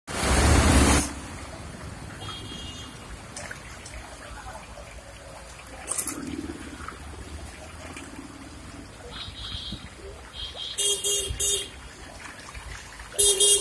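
Cycle rickshaw wading through flood water, with a steady wash of water and street traffic. A loud rush of noise fills the first second. A horn honks three short times about eleven seconds in and once more near the end.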